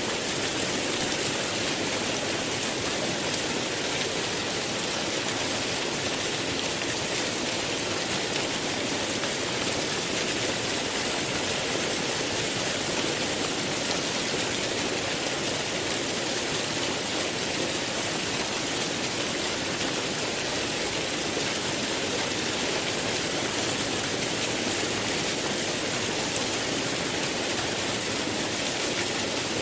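Running water of a river or waterfall rushing steadily, an even wash of noise that does not change.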